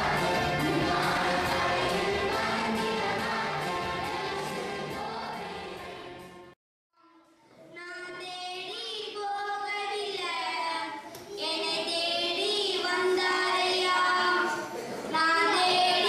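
A group of children and adults singing together with a steady beat, fading out about six seconds in. After a brief silence, children sing into a handheld microphone.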